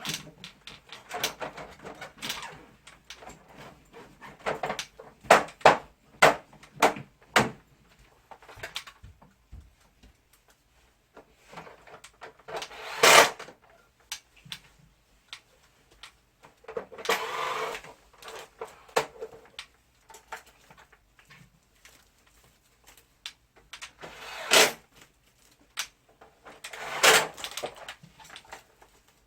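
Irregular clicks and knocks of hard plastic parts being handled, with a few louder scrapes or rustles: work on a wall-mounted air conditioner's disassembled parts.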